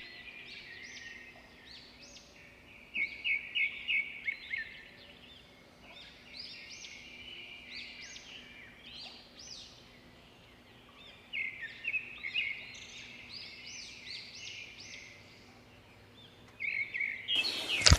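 Small birds chirping in quick runs of high calls, with pauses between the runs. Near the end a sudden loud burst of noise breaks in.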